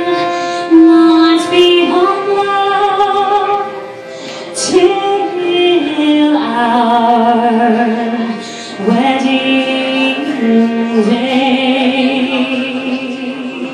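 A woman singing a slow ballad live, holding long notes with vibrato that step from one pitch to the next, over a steady tone held underneath. The singing eases off near the end.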